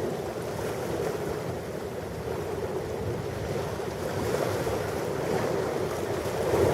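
Ocean surf: a steady wash of waves breaking and running up a shore, swelling louder near the end.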